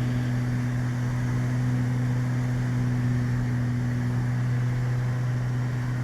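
Steady drone of a Beechcraft Baron's twin piston engines and propellers heard from the cockpit in flight, an even low hum with a steady hiss of airflow.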